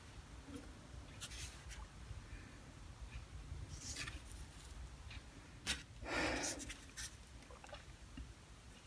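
Quiet workbench handling: scattered light clicks and short scratching strokes of tools and a steel shank, with one louder scrape about six seconds in.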